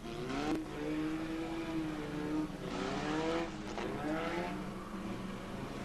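Engines of several demolition-derby cars running and revving together as the pack laps under caution, their pitch rising and falling.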